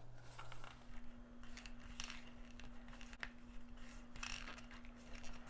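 Hands kneading crumbly rice-flour and jaggery dough in a stainless steel bowl: faint rustling and scraping with a few soft clicks of fingers against the bowl. A low steady hum sits underneath from about a second in.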